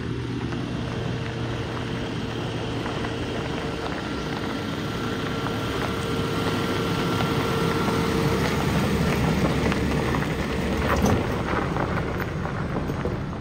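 Land Rover Defender driving along a dirt track and passing close by: engine and tyres on gravel make a steady rush that grows louder toward the pass, with a few crackles of stones near the end.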